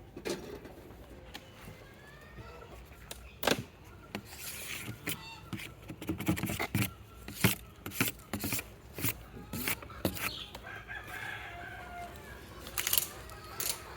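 A rooster crowing with chickens clucking in the background, under repeated sharp wooden knocks and clicks from the wooden hive boxes and frames being handled.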